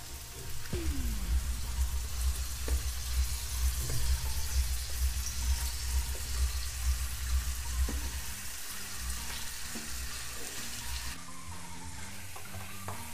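Raw chicken pieces sizzling in hot mustard oil and spice paste in a kadai, with a few soft knocks as pieces drop in. About eleven seconds in the sizzle drops to a quieter frying hiss, and a wooden spatula starts stirring the chicken.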